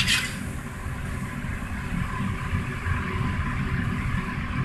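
Steady rumble and hiss of a commercial wok range running on high heat, with a short clatter right at the start.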